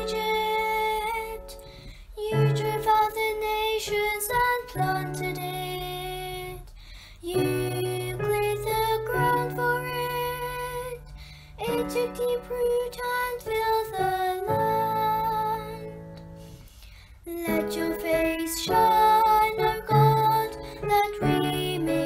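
Psalm setting for cantor and piano: a woman sings slow, held phrases over piano chords, with short breaks between the phrases.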